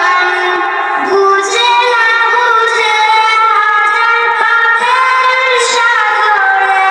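A young girl singing a Bangla gojol, an Islamic devotional song, in a single voice, holding long notes that bend and slide in pitch.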